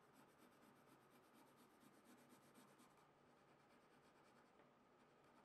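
Very faint pencil scratching on paper: quick, even strokes of a graphite pencil darkening lines, which fade out about three seconds in.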